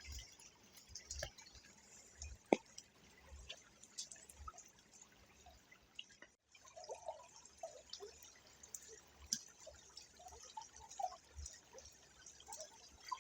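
Creek water trickling faintly, with scattered drips and small plinks. The sound briefly cuts out about six seconds in.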